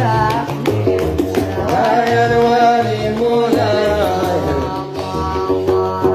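Gnawa song: a girl's solo singing voice over a plucked guembri bass line, with regular sharp percussive clicks keeping the rhythm.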